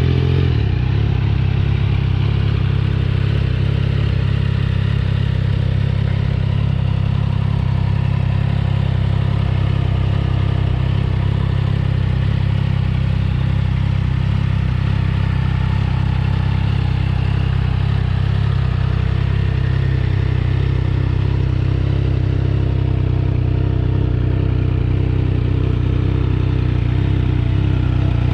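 Triumph Trident 660's three-cylinder engine idling steadily through a Yoshimura Alpha carbon exhaust, a deep, even exhaust note with no revving.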